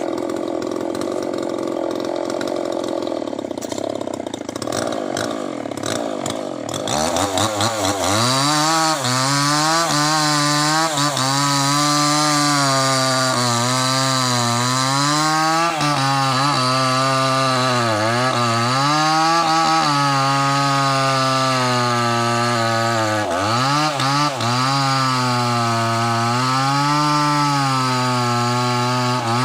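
Small two-stroke chainsaw revving up about seven seconds in and cutting into a large log. Its engine pitch sags under the load and recovers several times. Before that, a quieter rattling mechanical running sound.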